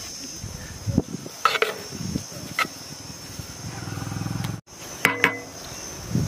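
Sharp metal clinks and scrapes of a steel ladle against a large steel biryani pot as the cooked rice is turned, several knocks spaced over the few seconds. Crickets chirr steadily throughout, and a low rumble is heard for about a second near the middle.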